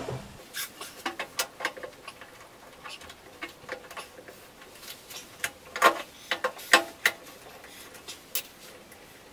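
Irregular clinks, clicks and knocks of tools and parts being handled on a workbench, several a second at times, with a louder cluster about six to seven seconds in.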